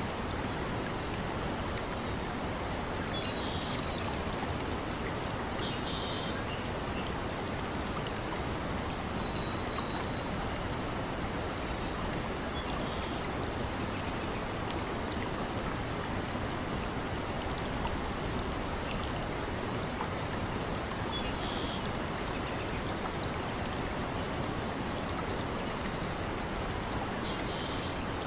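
Steady rushing of flowing water, even and unbroken, with a few faint short high-pitched sounds now and then.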